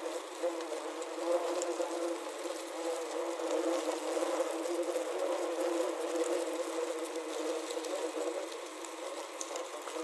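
Many wasps buzzing inside a plastic wasp trap, picked up through a contact microphone clipped to the trap: a dense, wavering drone with scattered faint ticks.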